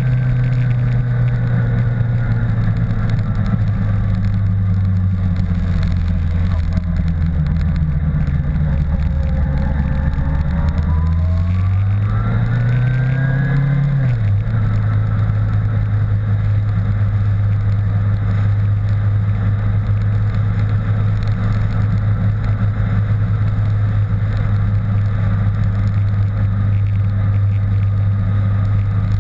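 Motorcycle engine running on the move, picked up by a camera mounted on the bike. Its pitch sinks slowly as the bike slows, climbs as it speeds up, falls sharply about halfway through, then holds steady.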